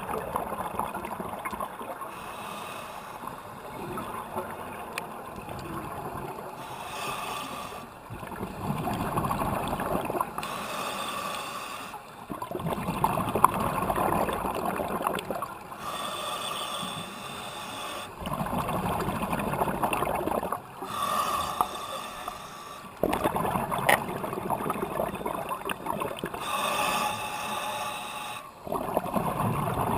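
Scuba regulator breathing underwater: the hiss of inhaled air through the regulator alternating with the gurgling bubbles of each exhale, in a slow, regular cycle of roughly one breath every five seconds.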